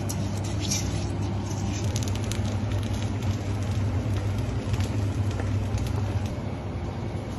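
Rice grains being stirred and scraped with a wooden spoon in a metal pot, a grainy rustle of many small ticks, over a steady low hum.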